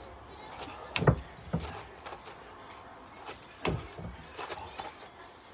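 Feet in trainers thudding onto a low wooden jump platform during jump squats. The loudest landing comes about a second in and another comes a little before four seconds, with lighter knocks between and around them.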